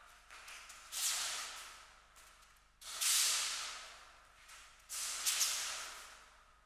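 Feet sliding across the practice mat in repeated Tai Sabaki stepping turns: three brushing swishes about two seconds apart, each starting sharply and fading over about a second.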